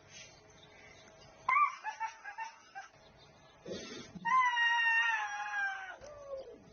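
Eight-month-old Siberian tiger cub giving soft, melodic cries. A run of short calls comes about a second and a half in, the first one dropping in pitch, and a longer call near the middle slowly falls. Zoo staff say the cub makes these cries to draw attention to itself, and vets have found nothing wrong with it.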